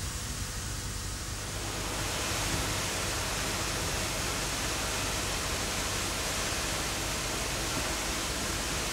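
Steady hiss of steam escaping from a rack-railway steam tank locomotive, out around its cylinders and running gear, growing louder about two seconds in.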